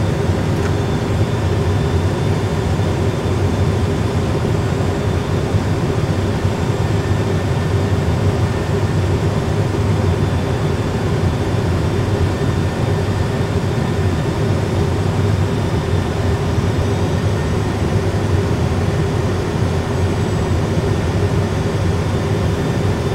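Airbus A320 full flight simulator's cockpit sound system playing a steady, unbroken low rumble of engine and airflow noise during an approach on one engine with the landing gear down.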